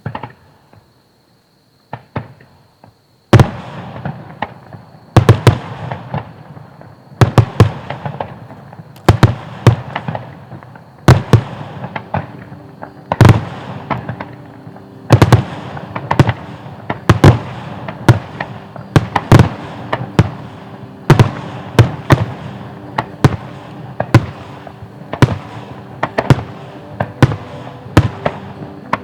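Fireworks display: aerial shells bursting in loud bangs, often in quick pairs, one every second or two after a few scattered bangs at first, with crackling between them.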